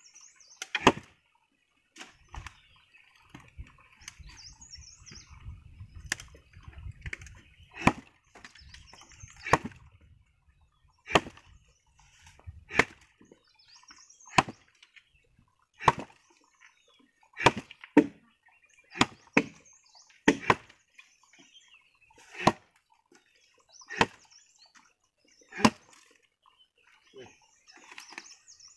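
An axe chopping into a felled log for firewood: a steady series of sharp blows of the blade biting into the wood, about one every second and a half.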